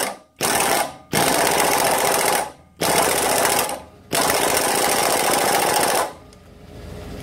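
Impact wrench (rattle gun) hammering in four bursts, the last and longest about two seconds, running the pulley nut tight on an alternator shaft.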